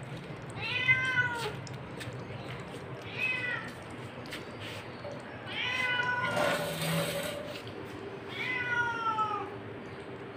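Tabby street cat meowing four times, two to three seconds apart, each meow rising and then falling in pitch.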